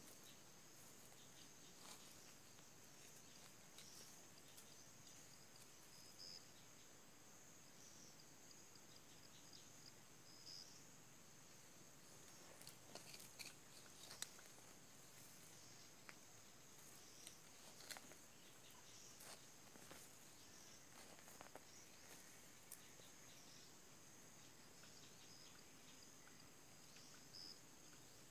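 Near silence: a faint, steady high-pitched insect chorus, with scattered soft clicks and scrapes as a small hand tool digs in soil.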